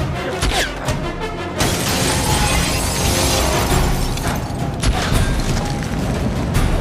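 Tense film score over a fistfight, with a long crash of shattering glass from about a second and a half in and sharp thuds of blows near the end.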